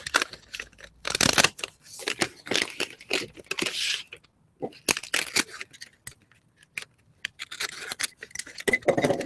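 Brown kraft paper wrapping being torn open and crinkled by hand, in irregular rips and rustles with a couple of short pauses.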